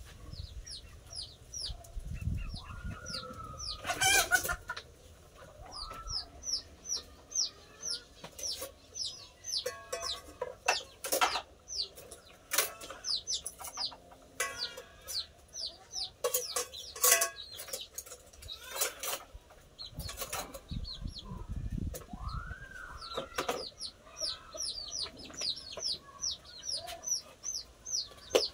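Chickens in the yard: short, high, falling chirps repeating two or three times a second throughout, with a few longer rising-and-falling calls. Sharp clattering knocks of dishes and pots being handled come in between, loudest about four seconds in and again around seventeen seconds in.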